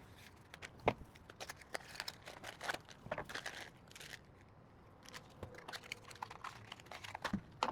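Plastic packaging crinkling and rustling in the hands, with scattered small clicks and taps as the power window switches are handled.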